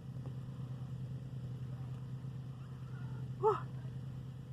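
Steady low hum of a running machine, even and unbroken, with a short exclaimed "whoa" near the end.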